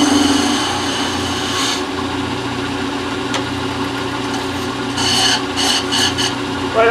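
Shopsmith 10ER lathe, driven by a half-horsepower Rockwell electric motor, running with a steady hum while a tool scrapes the spinning teak leg to trim a smidgen more off the tenon. The scraping is continuous for about the first two seconds, then comes as four brief touches near the end.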